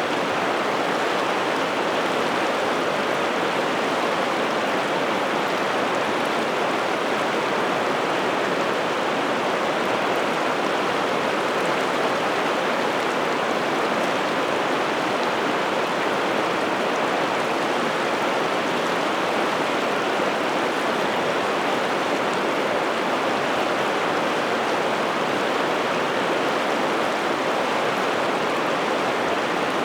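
Piteälven river water rushing steadily: a constant, even noise with no breaks or separate splashes.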